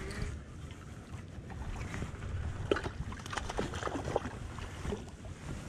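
Wind buffeting the microphone and water lapping, with scattered light clicks and knocks through the middle as a baitcasting rod and reel are worked.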